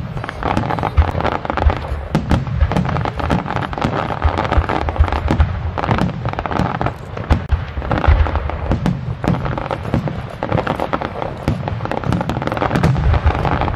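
Aerial fireworks going off in rapid, continuous succession: many overlapping sharp cracks over low, heavy thuds, with no pause between bursts.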